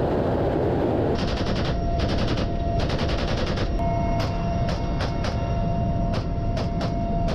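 Rifle fire from inside an Mi-8 helicopter's cabin: three rapid automatic bursts starting about a second in, then a string of separate single shots, over the steady noise of the helicopter's turbine engines and rotor.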